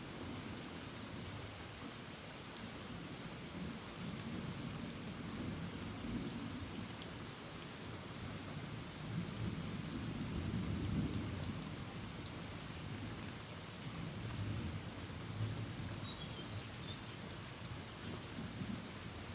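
Heavy rain falling steadily on a tin roof, with low thunder rumbling in slow swells. Faint high chirps repeat about once a second, with a brief cluster of them near the end.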